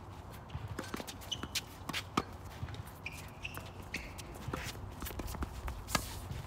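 Tennis rally on a hard court: sharp racket-on-ball hits, the loudest about two seconds in and near the end, with fainter ball bounces, shuffling footsteps and short shoe squeaks in between.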